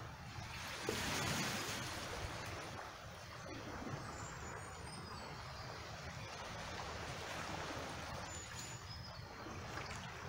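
Water running and trickling in a rock pool mixed with small waves lapping over cobbles and rocks, a steady wash with a louder swell about a second in.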